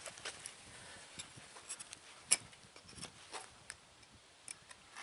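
Chicken Hawk-modified carpenter's hatchet carving a 7 notch into a wooden stake: irregular light clicks and knocks as the bit bites into the wood, with one sharper knock about halfway through.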